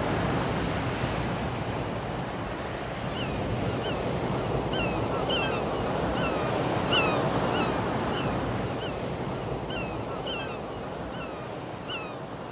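Sea waves washing with a steady rushing hiss; from about three seconds in, a string of short, falling bird calls, about two a second.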